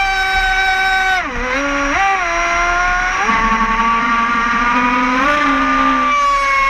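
Radio-controlled speedboat's motor whining under way, its pitch dropping sharply a little over a second in, then climbing back and holding steady, with a rush of water over the hull.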